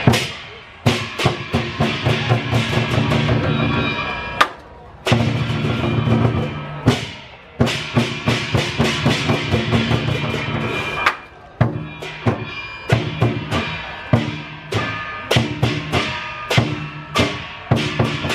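Lion dance percussion: a big drum beaten in fast, uneven patterns with cymbals crashing and ringing over it, stopping briefly now and then between phrases.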